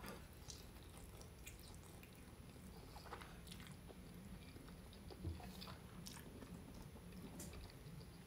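Faint sounds of a person chewing a mouthful of lasagna, with scattered soft mouth clicks.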